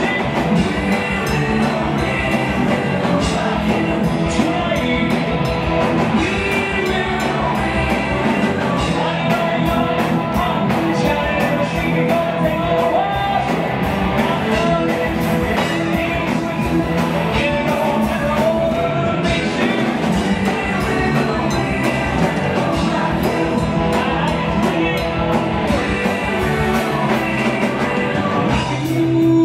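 Live rock band music: drum kit, guitar and keyboards backing a male lead singer who sings a rock song at full volume.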